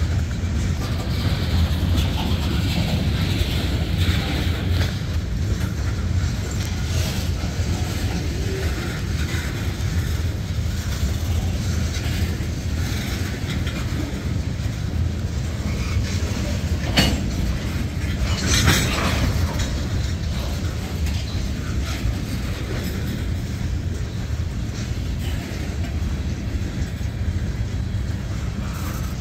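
Freight train cars of covered hoppers and tank cars rolling past: a steady rumble of steel wheels on rail. A little past halfway there are two brief, sharp metallic sounds from the wheels and cars.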